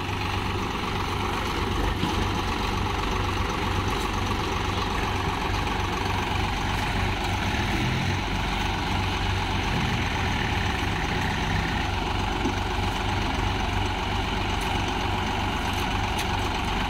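Swaraj 735 FE tractor's three-cylinder diesel engine running steadily close by at a low, even speed, with other tractor diesels running behind it.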